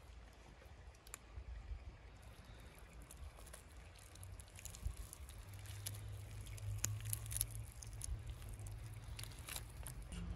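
Soft wet squishing and scattered small clicks of boiled cow's-head meat being pulled off the bones by gloved hands, over a faint low rumble.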